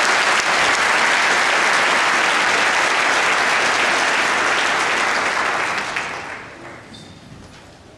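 Large audience applauding, a dense steady clapping that dies away over the last two seconds to a few scattered claps.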